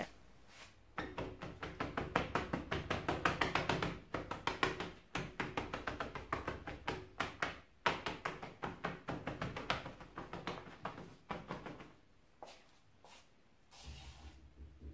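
A cloth rag dabbed rapidly against a painted wall: a quick run of soft taps, several a second, blotting off the excess of a watery chalk-paint wash. The dabbing stops a few seconds before the end, leaving a few separate knocks.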